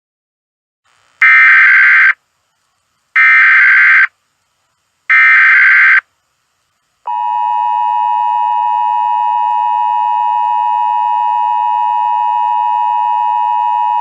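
Emergency Alert System SAME header: three roughly one-second bursts of digital data tones, evenly spaced, followed from about seven seconds in by the steady two-tone EAS attention signal (853 Hz and 960 Hz sounded together).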